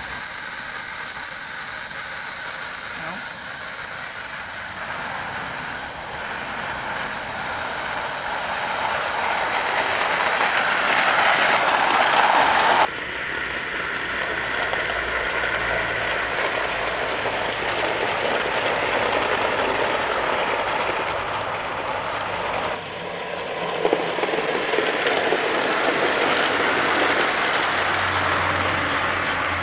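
Accucraft M6 gas-fired live-steam Gauge 1 locomotive running with a train of wagons, its exhaust steam hissing. The sound builds, drops off suddenly about 13 seconds in, then builds again.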